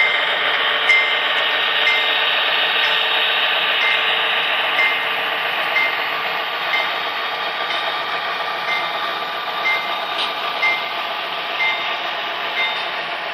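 Model train locomotives running past on the layout track: a steady whirr of motors and rolling wheels, with a light click about once a second.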